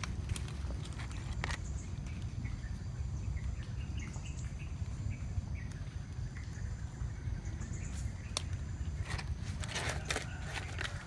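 Metal spoon scraping and clicking against crab shells and a ceramic bowl, with a cluster of clicks near the end. Faint bird and insect chirps sit over a steady low rumble.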